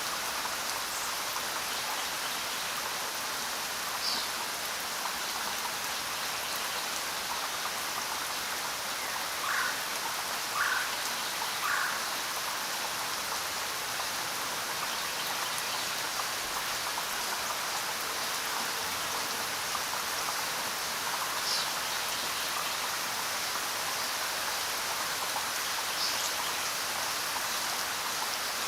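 Steady rain falling, an even hiss of many drops. A few short chirps stand out over it, three in a row about ten seconds in and a few higher ones scattered elsewhere.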